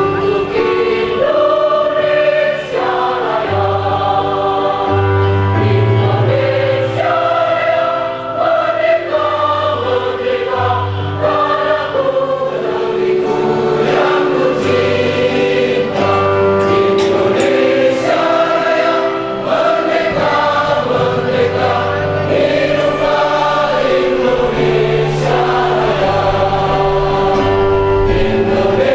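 Large choir singing, many voices moving together through held notes.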